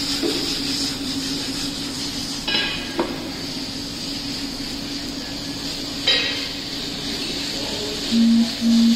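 Red-sauce penne sizzling in a nonstick pan on an induction cooktop, over the cooktop's steady hum, while a silicone spatula stirs and tosses it, clinking against the pan three times. Two short low tones sound near the end.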